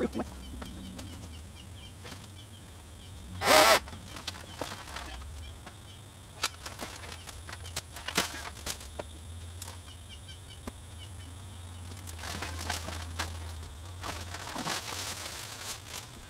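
Leafy tree branches rustling and snapping as fallen limbs are pulled and handled, with one loud, short crackle about three and a half seconds in and scattered sharp snaps, over a steady low hum.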